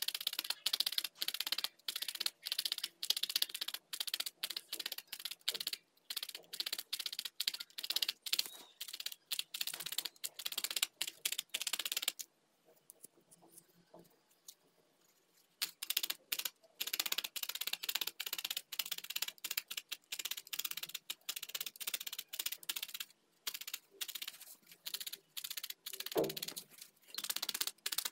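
Felting needle stabbing wool into a foam pad: a quick, even run of crisp, scratchy pokes, about three a second, that stops for a few seconds about halfway through and then resumes. A single dull thump comes near the end.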